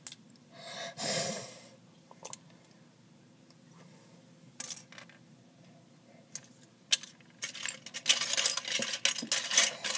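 Plastic Lego pieces clicking: a few single clicks, then from about seven and a half seconds a dense clatter of pieces being handled and rummaged through.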